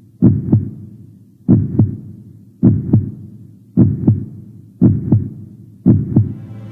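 Heartbeat sound: a steady lub-dub double thump repeating about once a second. Music starts to fade in near the end.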